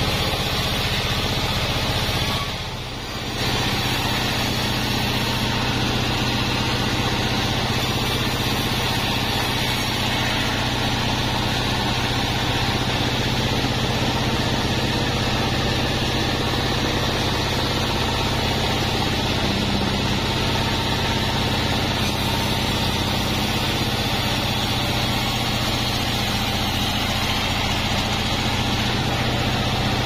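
Large 36-inch sawmill band saw running steadily, its motor and blade making an even drone, with a brief drop in level about three seconds in.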